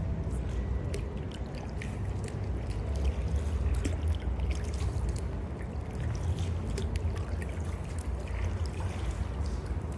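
Kayak paddling: water trickling and dripping off the paddle blades in small splashes and drips, over a steady low rumble.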